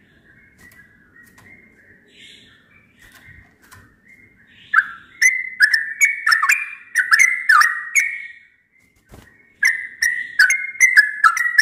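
Yellow-vented bulbul singing: soft chattering notes at first, then loud, bubbly whistled phrases from about five seconds in, a short pause near nine seconds, and another run of phrases.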